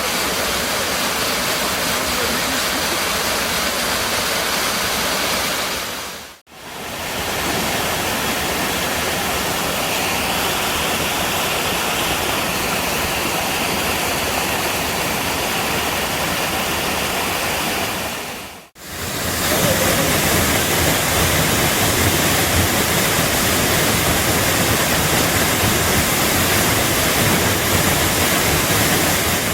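Waterfall pouring, a steady, dense rush of water. The sound briefly drops away twice, about six and nineteen seconds in, and comes back a little louder after the second break.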